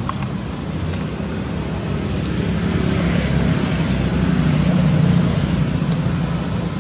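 Steady hum of a vehicle engine on a nearby road, swelling to its loudest about five seconds in and then easing off, as a vehicle passing by would.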